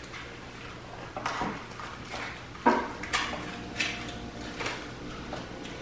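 Small camera accessory pack being handled and opened by hand: light rustling of the packaging with about half a dozen sharp clicks and taps of small plastic parts.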